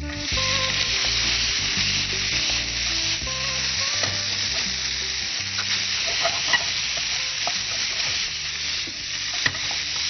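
Boiled penne pasta tipped into a hot non-stick pan of sautéed bell peppers and paneer. It starts sizzling suddenly as it lands and keeps sizzling while a spatula stirs and tosses it. A couple of sharp taps of the spatula on the pan come near the end.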